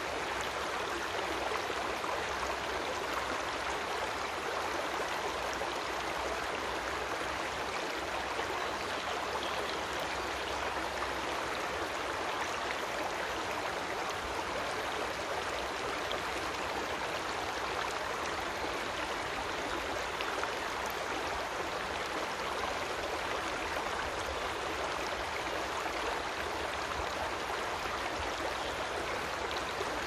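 A creek running steadily: an even, unbroken rush of flowing water.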